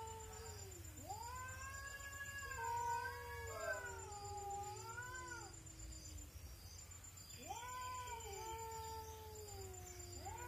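Two cats caterwauling in a territorial standoff: long, wavering yowls that rise and fall in pitch. One stretch of yowling starts about a second in and dies away past the middle, and a second starts about seven seconds in.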